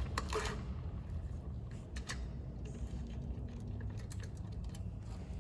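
A few faint clicks and knocks of hands fitting a part, over a low steady hum.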